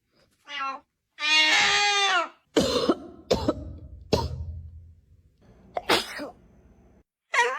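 A cat meows twice, a short call and then a long drawn-out one, followed by four or five harsh cough-like bursts a second or so apart.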